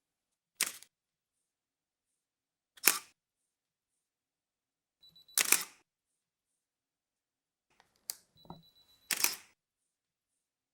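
DSLR camera shutter firing four times, a couple of seconds apart, each a sharp mechanical click. A faint steady high tone comes in just before the third and the last release, and the last is preceded by a couple of smaller clicks and a low thump.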